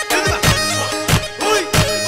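Chobi dance music: a loud reed pipe plays a wavering, ornamented melody over held tones, with regular drum beats about every half second.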